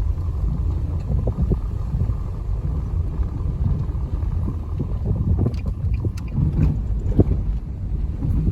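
Steady low rumble of a car driving, engine and tyre noise on the road, with a few light clicks or rattles about two thirds of the way through.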